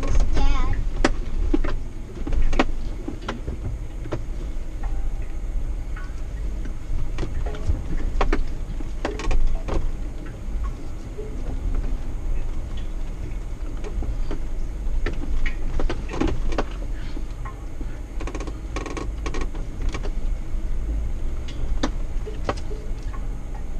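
Jeep Wrangler driving slowly over a bumpy dirt trail: a steady low engine and drivetrain rumble, with frequent knocks and rattles as the vehicle rocks over ruts and roots.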